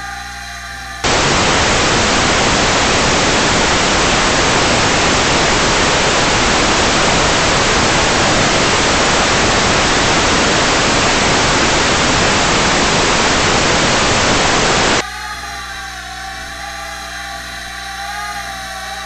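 Loud, steady static hiss that starts suddenly about a second in and cuts off just as suddenly near the end, with quieter background music on either side.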